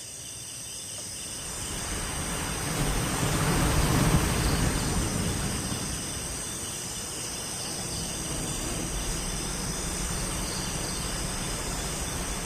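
Steady ambient noise with several continuous high, thin tones like an insect chorus, over a rushing hiss that swells about three to four seconds in and then settles.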